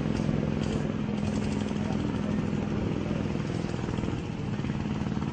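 An engine running steadily, a continuous low drone with a fast pulsing beat.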